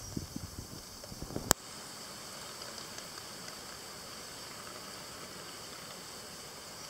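A few faint low knocks, a single sharp click about a second and a half in, then a steady, even hiss.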